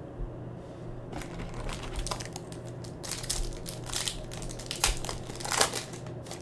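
Foil wrapper of a Panini Prizm basketball card pack crinkling and tearing as it is pulled from the box and ripped open. The irregular crackling starts about a second in and is loudest near the end, as the wrapper is torn apart.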